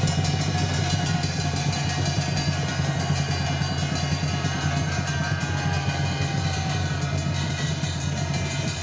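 Two-headed barrel drums beaten in a fast, unbroken rhythm, with a steady low hum underneath.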